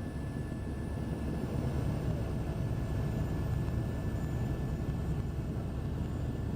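Helicopter running in flight, heard from inside the cabin: a steady low rumble from the engine and rotor with a thin, steady high whine above it.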